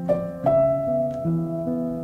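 Instrumental background music of slow, held notes, with a couple of plucked notes struck near the start.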